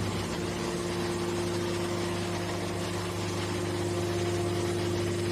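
Hydraulic aluminum can baler's electric motor and hydraulic pump running with a steady hum.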